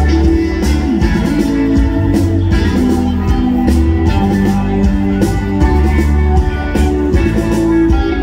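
Live reggae band playing an instrumental passage: electric guitar over a heavy bass line and drum kit.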